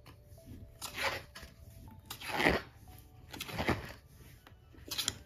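Pages of a large album photo book being turned by hand: four swishing page turns, about one every second and a quarter.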